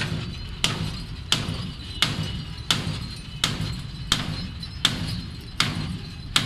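Hammer blows on a steel part, struck at a steady rhythm of about three blows every two seconds, each a sharp, ringing metal strike.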